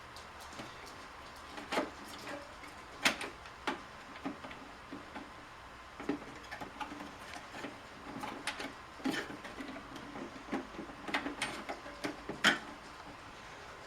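Irregular clicks, taps and knocks of hands handling and prying at the parts of a Keurig coffee maker being taken apart, with the sharpest knocks about 3 seconds in and near the end.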